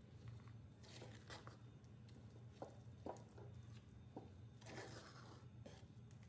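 Wooden spatula stirring sticky cooked rice and melting jaggery in a clay pot: faint, irregular squelches and scrapes, over a low steady hum.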